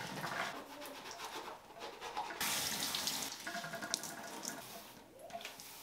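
Water running in a shower tub, with a louder burst of hiss about two and a half seconds in.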